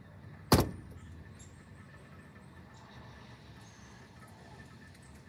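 A single sharp click or knock about half a second in, much louder than anything else, dying away almost at once over low, steady background noise.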